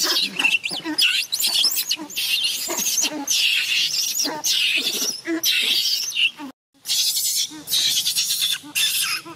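Baby macaque screaming: rapid, high-pitched squeals and shrieks over and over, distress calls of a baby being grabbed and handled by an older monkey. The cries break off briefly about six and a half seconds in, then start again.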